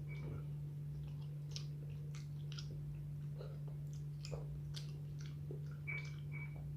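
Close-miked chewing and wet mouth sounds of a person eating soft food, with scattered small clicks. A steady low hum runs underneath.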